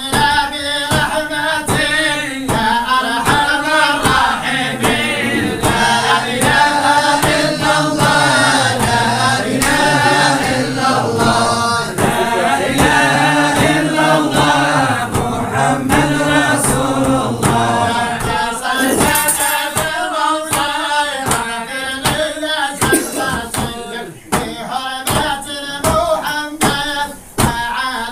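A group of voices singing a devotional chant together, over hand percussion keeping a steady beat.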